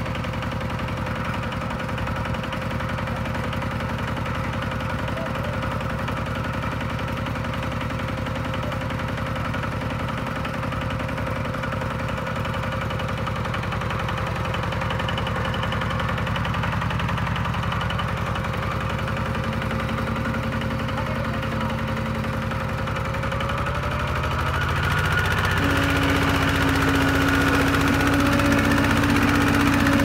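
Kubota RT110 walking tractor's single-cylinder diesel engine running steadily. About 24 seconds in it speeds up, rising in pitch and getting louder.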